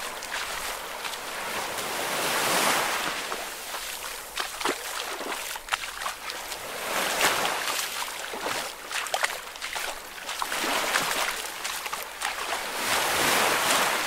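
Ocean waves washing in, the surf rising and falling several times, with small splashes and trickles of water throughout.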